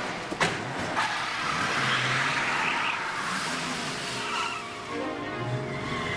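Two car doors slam, about half a second apart, then a police car pulls away hard, its engine revving and its tyres squealing.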